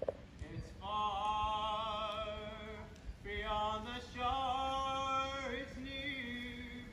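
A gondolier singing unaccompanied, long held notes with vibrato, with a short pause for breath about three seconds in.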